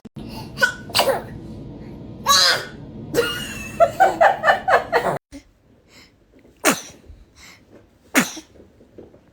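Babies sneezing several times, each sneeze a short sharp burst. Near the end come two sneezes about a second and a half apart.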